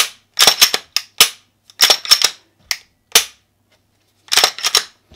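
Glock 17 slide being fitted back onto the frame and worked by hand: repeated sharp metal-on-polymer clicks and clacks in quick clusters, with short pauses between.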